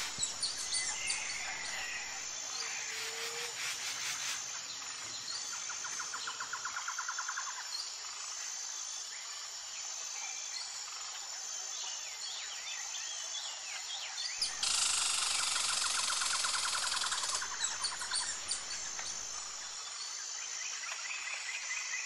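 Outdoor birdsong ambience: several birds chirping and trilling over a steady background hiss, with a fast pulsing trill recurring a few times and a faint, regular high chirping like an insect. The low background rumble cuts out abruptly about a third of the way in and comes back about two-thirds through.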